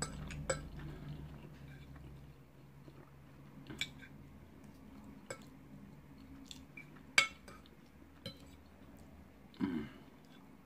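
A metal fork clicking and scraping against a plate of noodles, a few sharp clinks spaced seconds apart with the loudest about seven seconds in, between quiet chewing. A short mouth sound near the end.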